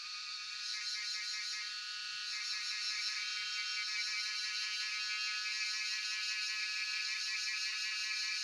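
Cicadas singing: a continuous high-pitched buzzing chorus with a fast pulsing texture, growing louder over the first few seconds and then holding steady.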